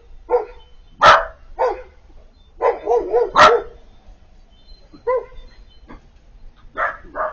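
Siberian husky puppy "talking": a string of short whining, warbling calls that wobble up and down in pitch, broken by two sharp, louder barks about a second and three and a half seconds in.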